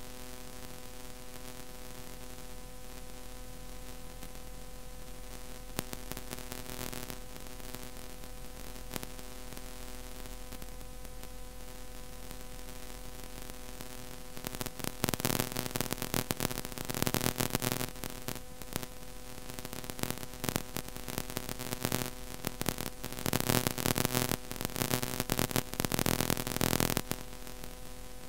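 Steady electrical hum and hiss of an old recording between pieces of music, with loud crackling static bursts from about halfway through that stop suddenly near the end.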